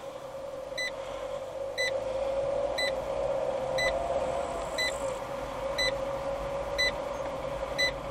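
A car driving, heard from inside the cabin: a steady engine and road hum that rises a little in pitch about halfway through and settles back. A short electronic beep repeats about once a second.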